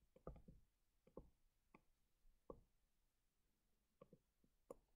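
Near silence broken by a handful of faint, irregular clicks of a stylus tapping on a tablet screen during handwriting.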